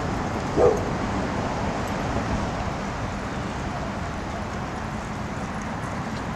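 A dog barks once, short and loud, about half a second in. After that there is only steady background noise.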